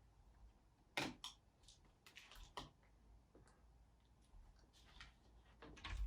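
Near silence: room tone with a few faint scattered clicks and taps, the sharpest about a second in.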